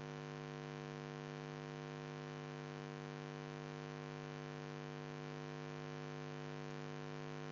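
Steady electrical hum with a stack of even overtones, unchanging throughout: mains hum picked up in the recording chain.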